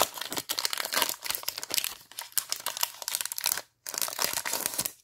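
Foil-lined wrapper of an Upper Deck hockey card pack being torn open and crinkled by hand: a dense run of crackling with a short break a little before four seconds in.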